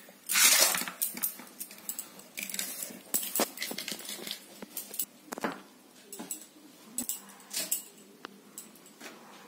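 Peeled green hog plums being cut in half on a boti, a curved blade set in a wooden base: irregular crunches, clicks and scrapes as the blade works slowly through the very hard stone inside the fruit, the loudest a short rasping burst about half a second in.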